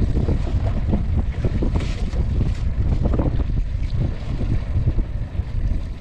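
Wind buffeting the microphone on a small open boat at sea, with a few short knocks and scrapes as a lobster pot line is hauled in by hand over the side.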